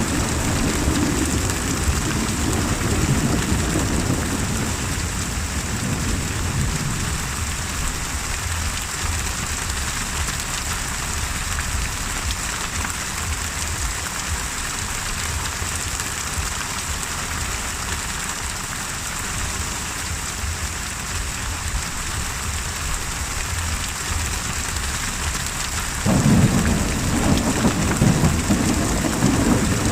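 Steady heavy rain with thunder. A low rumble fades away over the first several seconds, and another breaks in suddenly and louder about 26 seconds in.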